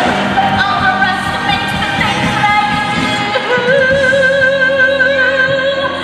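Song with backing music: a singer holds one long note with vibrato from about halfway in.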